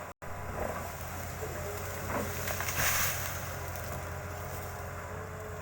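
Excavator engine running steadily, with a brief louder rush of noise about three seconds in.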